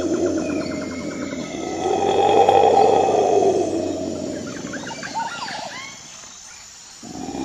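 Tiger giving long, low growling roars, the loudest about two seconds in as it opens its jaws. A few short chirps follow near the end.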